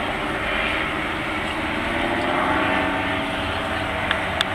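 An aircraft engine running steadily in flight, its pitch sinking slightly in the second half. Two short clicks sound near the end.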